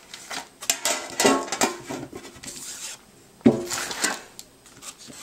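Handling noise from unboxed trading-card tin items on a table: several light knocks and rubs, with one louder, briefly ringing knock about three and a half seconds in.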